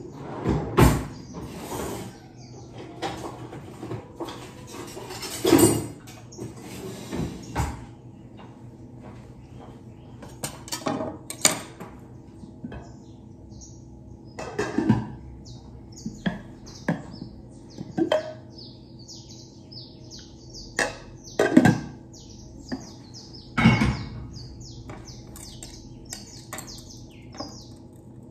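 Knocks and clunks of kitchen things being handled and set down on a counter, over a steady low hum. Small birds chirp repeatedly from about halfway through.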